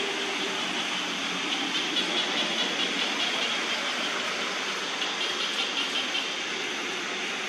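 Steady hissing background drone. A high band within it pulses about four times a second in two spells in the middle.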